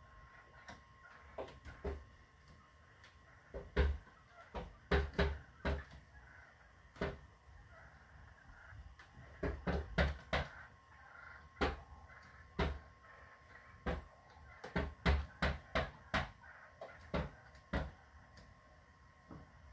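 Wild turkeys pecking at a glass patio door: sharp taps and knocks on the glass in irregular clusters, often two or three in quick succession.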